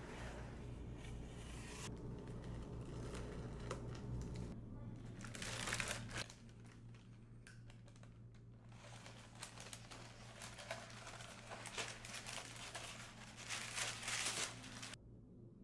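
Paper rustling and crinkling as hands unwrap a rolled print from its wrapping paper and tissue paper, in uneven bursts, over a faint low hum; it cuts off suddenly near the end.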